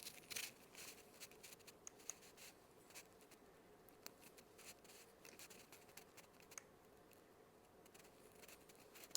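Near silence with faint, scattered light clicks and scrapes, a few near the start and a few more later on: hands handling a 3D-printer build plate and its clips.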